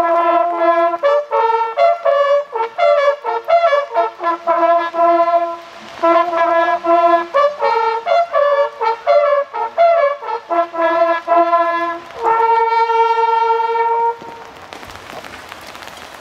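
Hunting horns playing a hunting fanfare in a series of short, clear notes that end on a long held note about 14 s in. Rain patter follows.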